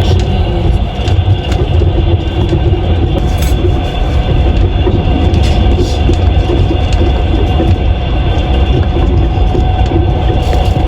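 Train wheels running on the rails: a steady, loud rumble with a few faint clicks scattered through it.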